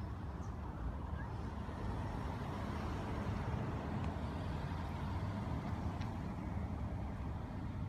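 Road traffic on the street beside the field: a low, steady motor-vehicle rumble that grows louder about two seconds in.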